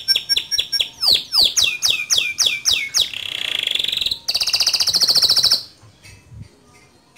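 Male domestic canary singing in rolling phrases: rapid repeated notes, then a series of falling whistled sweeps at about four a second, a buzzy trill, and a fast high trill. The song stops abruptly a little past halfway through, leaving faint background sound.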